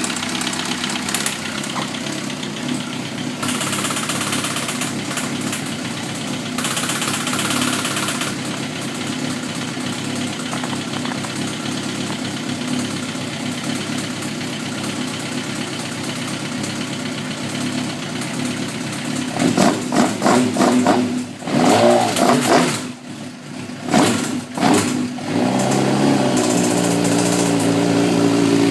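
Suzuki GSX-R1000 inline-four idling with a ticking noise from the cylinder head, which the owner suspects is a valve train issue. About two-thirds in the throttle is blipped several times, and near the end the engine steps up and holds at higher revs.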